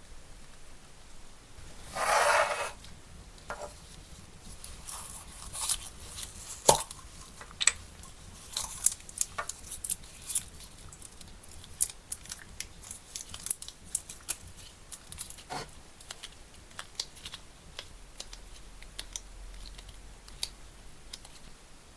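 Hand-work sounds: a brief ripping or scraping noise about two seconds in, then a run of irregular sharp clicks and snips that thin out toward the end.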